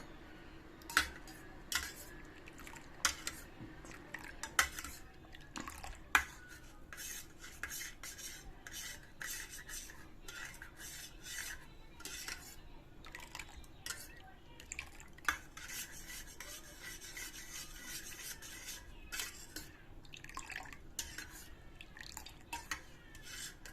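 A metal spoon clinking and scraping against a vessel while stirring: a few separate sharp clinks over the first six seconds, then quicker, near-continuous scraping and clinking.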